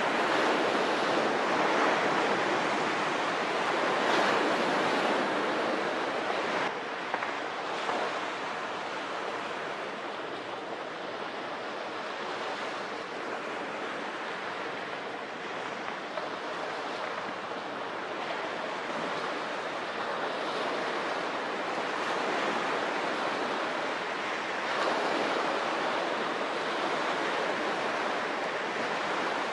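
Steady rushing noise of wind and harbour water, with no engine, horn or other distinct sound standing out. It drops a little about seven seconds in and swells again near the end.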